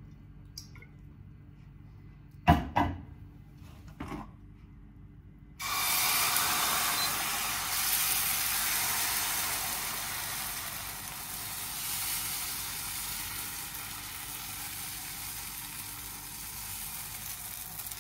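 A few sharp knocks, then, about five and a half seconds in, a sudden loud sizzle as pancake batter is poured into hot oil in a steel frying pan, easing off slowly as the batter cooks.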